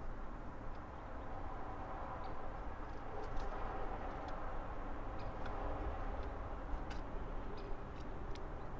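Steady outdoor background hum with small, sharp ticks scattered throughout.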